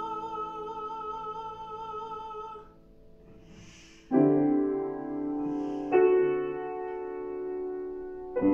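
A soprano holds a long sung note with vibrato over piano, letting it go a little under three seconds in. A grand piano then plays three firm chords, each struck and left to ring, about four, six and eight seconds in.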